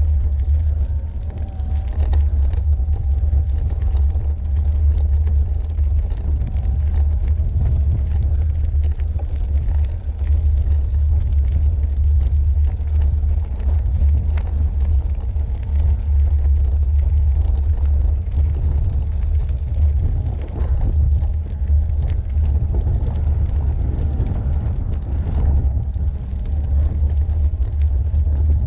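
Steady low rumble of an e-bike rolling along a gravel track: tyre vibration and wind buffeting picked up by the bike-mounted camera's microphone.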